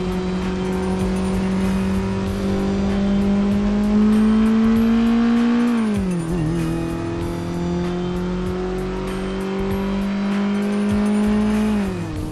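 KTM 690 single-cylinder motorcycle engine pulling at steady, slowly climbing revs. The revs drop sharply as the throttle is shut about six seconds in, and again near the end.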